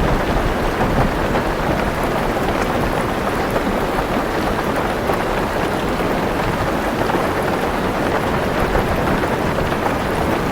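Heavy rain pattering steadily on a car roof, as heard from inside the car. A low thunder rumble sits underneath and eases off within the first second or so.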